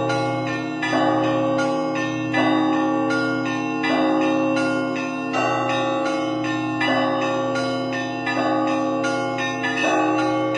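Russian Orthodox church bells rung by one bell-ringer in a rhythmic peal, the stationary bells struck by their clappers. Small high bells chime rapidly over a deeper bell struck about every second and a half, with the low bells humming on beneath.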